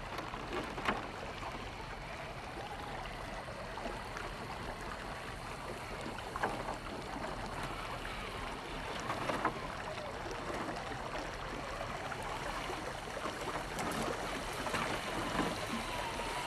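Water running in a shallow rocky stream as a 1/10-scale electric RC crawler drives through it, with a few sharp splashes. The motor gives a faint whine that wavers up and down.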